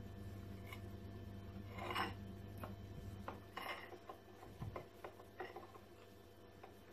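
Faint rustling and crinkling of thin warqa pastry sheets as hands fold them closed over the filling, in a few soft rustles with the clearest about two seconds in, over a low steady hum.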